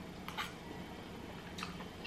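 Two faint light clicks of a metal fork against a bowl, one about a third of a second in and one near the end, over a low steady hum.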